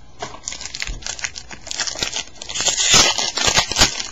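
Clear plastic wrapper of a trading-card pack crinkling and tearing as it is opened by hand, busier and louder in the second half.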